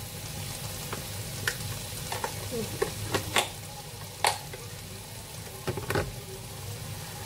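Thick rendang paste of chilli, spices and coconut milk simmering in an aluminium pot: a steady low bubbling hiss, with a handful of sharp pops or clicks scattered through, the loudest about three and four seconds in.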